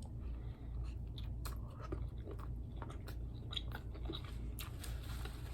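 A person chewing and biting a taco, with scattered small clicks throughout, over a steady low hum.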